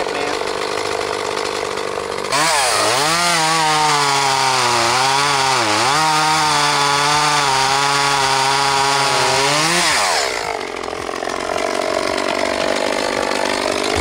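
Echo two-stroke chainsaw running, opened up to full throttle about two seconds in and cutting into the end of a log, its pitch dipping and recovering as the chain bogs under load. About ten seconds in it drops back to a lower, quieter run.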